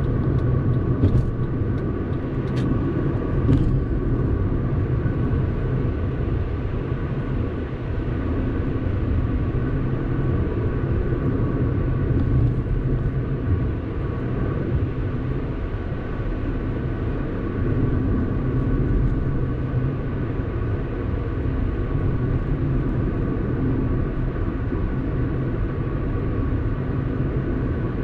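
A car driving along the road: steady low rumble of road and engine noise, with a faint steady whine above it and a few light clicks in the first few seconds.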